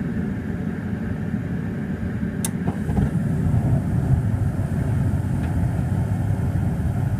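Gas furnace lighting off: the draft inducer motor hums steadily, a sharp click comes about two and a half seconds in, and then the low burner rumble grows louder as the burners catch.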